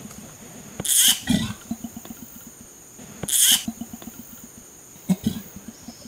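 Sounds of an orangutan in a tree: two short, hissing bursts, about a second in and again about three seconds in, with a smaller one near the end.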